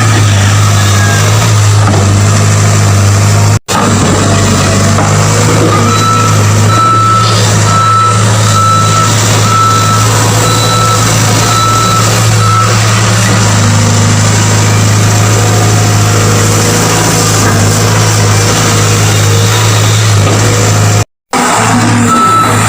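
Excavator's diesel engine running with a steady low drone, and a travel alarm beeping evenly, about one and a half beeps a second, for several seconds in the middle. The sound breaks off briefly twice.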